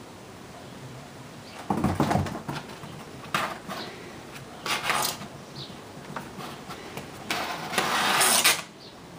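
Kitten's paws and claws scrabbling and thumping on a cardboard box, in separate bursts: a thump about two seconds in, short scrapes around three and five seconds, and a longer scratching scrape near the end.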